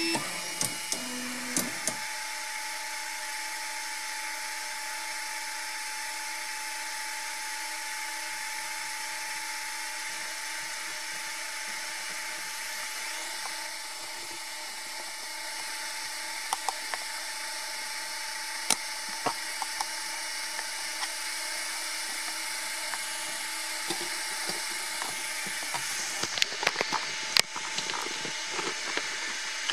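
Ultimaker 2 3D printer running: a steady mechanical whine and fan hum with two held tones over a hiss, with scattered light clicks that come more often near the end.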